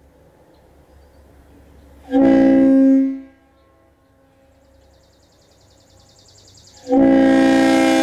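Leslie RS-2A train air horn sounding a steady chord in two blasts. The first comes about two seconds in and lasts about a second. The second, louder and longer, starts near the end.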